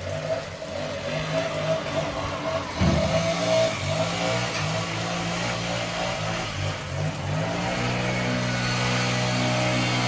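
Small two-stroke engine of a gas leaf blower running, its pitch rising and falling with the throttle, then held steady near the end, over the hiss of heavy rain.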